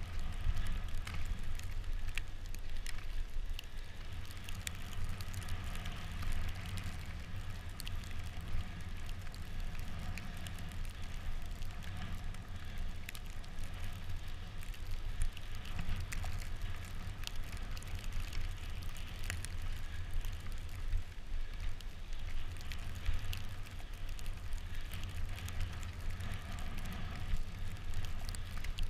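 Bicycle riding over a snow-covered road: the tyres on the snow give a steady low rumble, with a scattered crackle of snow throughout.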